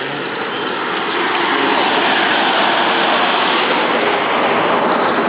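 Water pouring steadily into the demonstration basin, a rushing splash that swells about a second in and holds.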